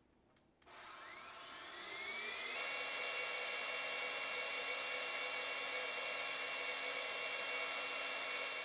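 Iris Ohyama IC-SLDCP5 cordless stick vacuum cleaner switched on with a click, its motor spinning up with a rising whine. A couple of seconds in it jumps louder, then runs steadily with a high whine.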